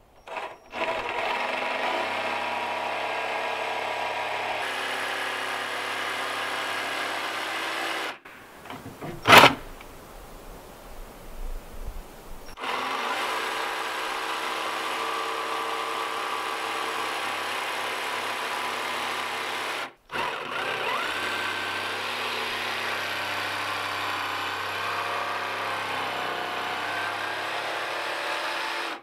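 Cordless jigsaw cutting through a plywood sheet, running steadily in three long stretches with a few seconds' stop about 8 seconds in and a brief one about 20 seconds in. A single sharp knock about 9 seconds in, during the first stop, is the loudest moment.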